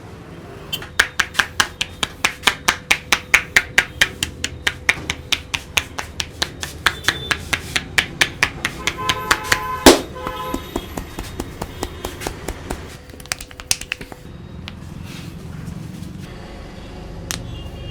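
Barber's hands tapping rhythmically on a client's head in a head massage: fast, even slaps at about four a second that stop about fourteen seconds in, with one louder strike near the ten-second mark. Low traffic hum underneath.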